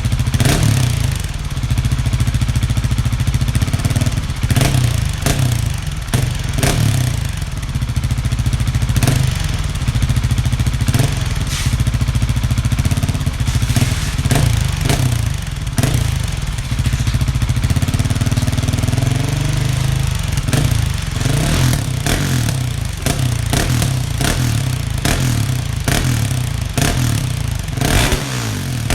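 Husqvarna 701's single-cylinder engine running through an aftermarket Arrow exhaust, idling with short throttle blips over and over.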